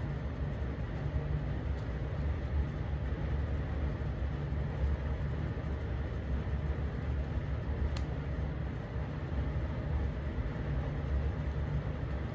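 Steady low rumble of background noise, with one faint click about eight seconds in.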